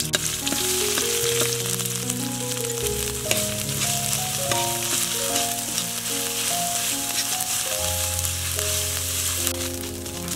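Garlic, red chilies and Khmer herb paste sizzling in hot oil in a wok, a steady frying hiss. Background music with a plain melody plays underneath.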